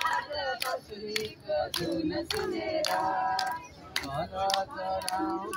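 A crowd of men and women singing together, keeping time with hand claps at about two a second.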